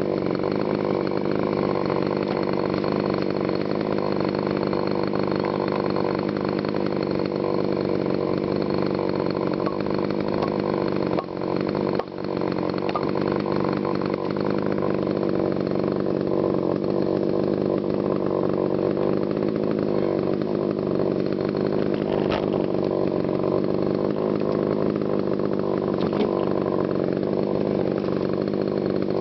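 TimberPro CS-6150 62 cc two-stroke chainsaw held at steady full throttle while bucking dense green honey locust, with two brief dips in the engine note about 11 and 12 seconds in.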